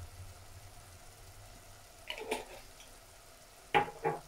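Watery mussel and tomato sauce simmering and bubbling in a clay pot, with a soft click about two seconds in and two sharp clicks near the end.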